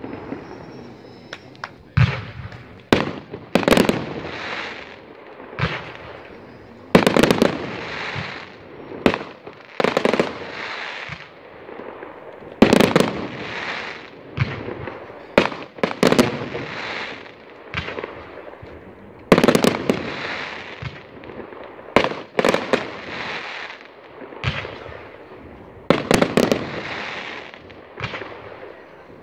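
Consumer firework batteries (cakes) firing: a sharp bang every one to three seconds as aerial effects burst, each trailed by crackle and echo.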